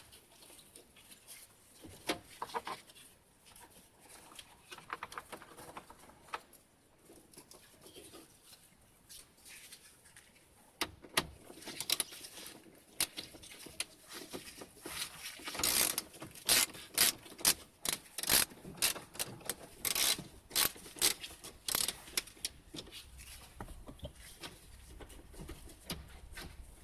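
Hand work on the van's interior parts: irregular clicks, knocks and rubbing, sparse at first, then coming thick and fast through the middle before thinning out near the end.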